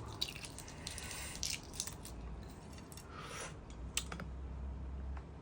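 Close-up eating sounds: soft chewing with scattered small clicks and crunches as food is bitten and handled.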